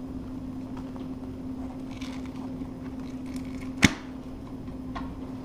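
A utility knife working a loose piece of vinyl plank flooring: faint scratching and small clicks, with one sharp snap a little before four seconds in. A steady low hum runs underneath.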